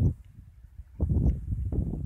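Wind buffeting the microphone: irregular low rumbling gusts that drop away briefly, then return about a second in.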